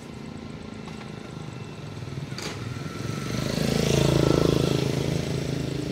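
A motor vehicle's engine passes close by on the street, rising from about three seconds in and fading near the end, over steady street background noise; a single short click sounds a little earlier.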